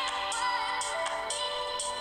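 Background music: a bright electronic tune with held tones and a new note or chord about twice a second.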